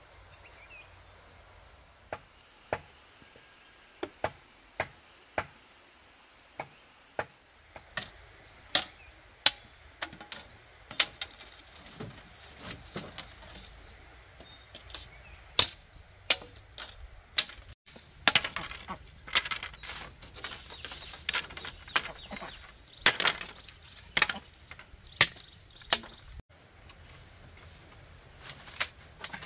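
A long knife chopping bamboo: sharp, irregular strikes, sparse at first and then coming about one or two a second, with bamboo pieces clattering in between.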